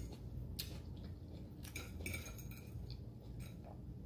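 Faint, light clinks of an eating utensil against a dish, a few scattered clicks, most of them bunched near the middle.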